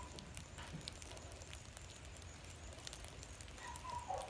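Quiet outdoor background: a low steady rumble with scattered faint crackles and ticks, and a couple of faint short tones near the end.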